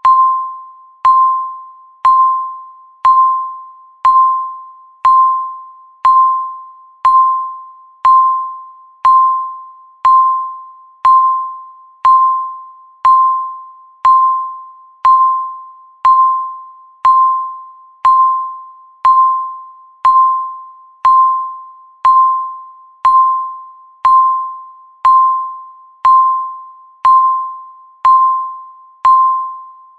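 Countdown timer beeping once a second: a single mid-pitched chime-like tone that starts sharply and dies away before the next.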